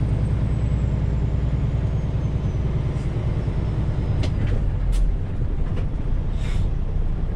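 Semi truck's diesel engine running, heard from inside the cab as a steady low rumble, with a few sharp clicks and a short hiss about six and a half seconds in.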